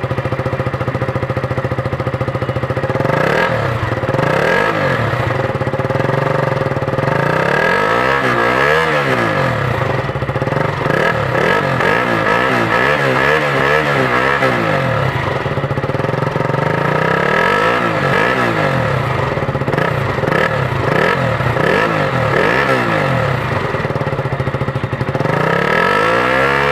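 KTM motorcycle engine running, first at a steady idle, then revved again and again, its pitch rising and falling over and over.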